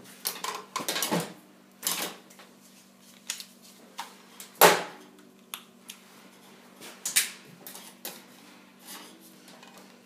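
Hands handling tools and wiring on a fridge's cooling unit: irregular clicks, clacks and rustles, the loudest clack a little before halfway, over a steady low hum.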